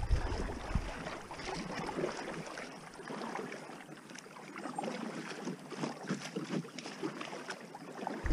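Shallow creek water rushing and splashing around an inflatable packraft running a riffle, with paddle strokes dipping in. Wind rumbles on the microphone for about the first second, then drops away.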